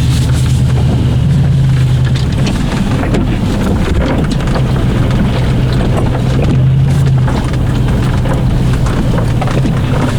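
First-generation Toyota Sequoia's 4.7-litre V8 running at low speed with a steady low drone that rises and falls slightly, while the tyres crackle and rattle over a rough, snow-covered dirt track.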